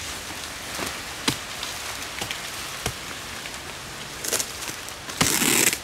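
Fibrous coconut palm trunk being torn and pried apart by hand, with scattered cracks and crunches and a louder rasping rush about five seconds in.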